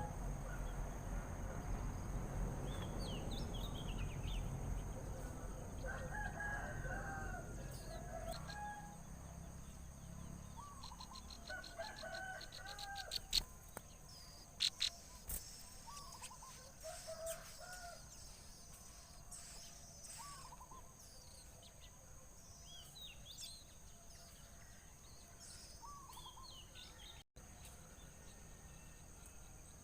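Birds calling: many short, curved chirps and calls, repeated throughout. A low rumble lies under the first third, a quick run of clicks and a few sharp knocks come about halfway, and a steady high-pitched tone runs beneath.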